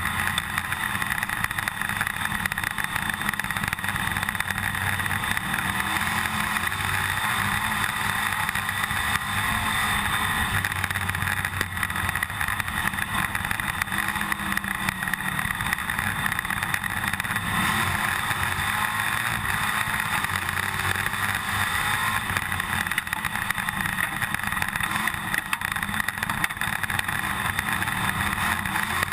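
IMCA stock car's V8 engine running hard at racing speed, heard from inside the cockpit, with the in-car camera rattling throughout.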